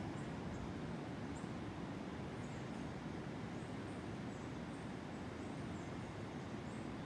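Coastal jungle ambience: a steady low rush under many short, high chirps from small animals.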